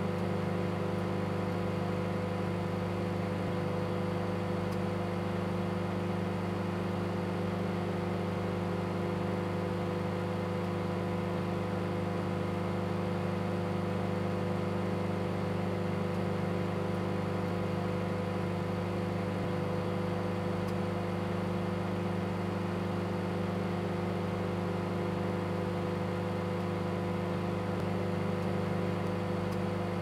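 Microwave oven running: a steady, unchanging electrical hum.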